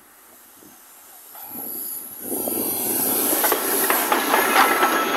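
Steam locomotive approaching and passing close by. Its sound swells about a second and a half in, then a hiss and a quick run of clicks and knocks from the wheels and running gear.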